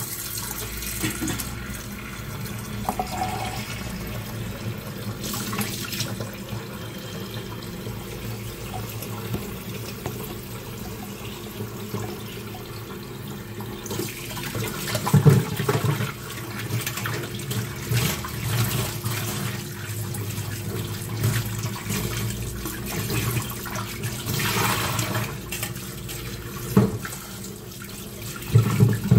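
Kitchen tap running into a steel bowl of prawns while hands rinse them under the stream, with water splashing steadily. There are a few louder knocks and splashes, about halfway through and near the end.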